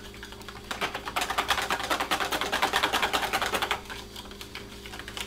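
Wire balloon whisk beating a cheese-powder, milk and water mixture in a plastic bowl: a rapid clatter of the wires against the bowl. It starts about a second in and drops to a softer stirring near the end.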